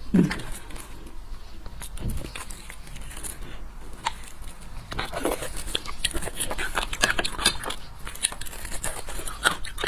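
Eating sounds of beef bone marrow: a metal spoon scooping the soft marrow out of the bone, then lips on the bone sucking and biting at it, as a stream of short wet clicks and smacks.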